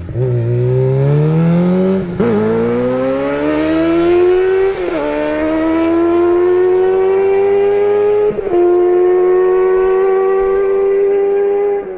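Sportbike engine under hard acceleration, pulling away through the gears. Its note climbs in each gear and drops at each upshift: at the very start, about two, five and eight seconds in, and again near the end. The later gears rise more slowly.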